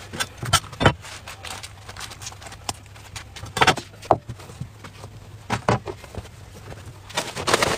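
Scattered taps and knocks of hands handling green onion leaves on a wooden cutting board, with a glass bowl set down on the board, over a low steady hum.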